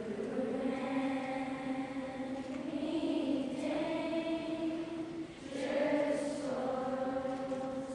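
School chorus singing long held notes together, with a short break about five seconds in before the next phrase begins.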